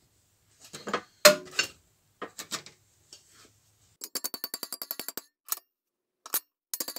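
Hammer rapidly tapping a sheet-steel repair patch over a box-section tube clamped in a vise, bending a rounded corner into the patch. A few separate knocks and clinks come first, then fast runs of ringing metallic taps, about ten a second, starting about four seconds in and again near the end.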